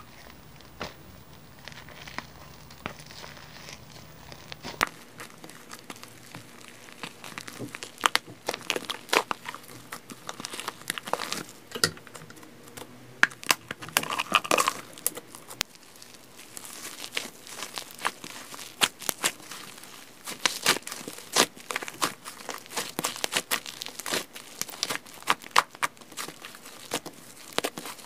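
Food-themed strawberry latte slime squished and pressed by hand, giving many small sticky pops and crackles that come thick and fast after the first several seconds, with a brief squeak about halfway through.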